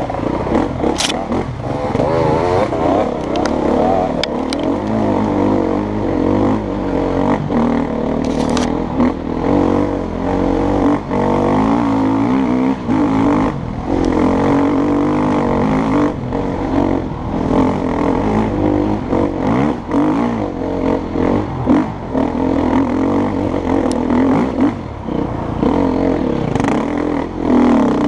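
KTM EXC-F 250's single-cylinder four-stroke engine under hard riding, its pitch rising and falling continuously as the throttle is worked, with occasional knocks and rattles.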